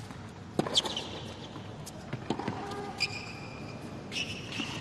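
Tennis rally on a hard court: a ball struck back and forth with rackets, giving several sharp hits and bounces, with short high squeaks in between.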